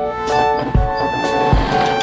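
Background music with a steady beat: a low drum thump a little under once a second under sustained melodic notes.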